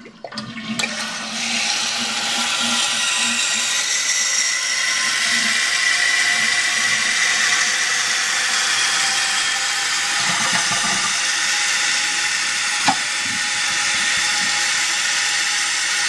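1959 Standard Cadet toilet with a tank-ball flush valve, flushing, then a steady rush of water as the tank refills. A single short click near the end.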